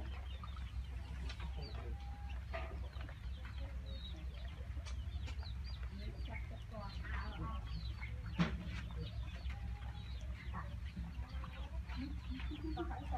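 Chickens clucking and calling in many short, scattered calls, over a steady low hum. About eight and a half seconds in, one sharp click stands out.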